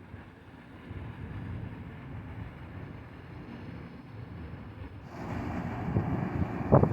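Wind rumbling and buffeting on the microphone, growing louder about five seconds in, with strong gusts near the end.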